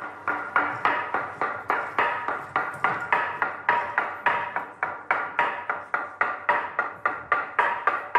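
Handheld wooden semantron (talanton) struck with a wooden mallet in a quick, uneven rhythm of about four sharp strokes a second, each with a short ring: the wooden call that summons Athonite monks to prayer.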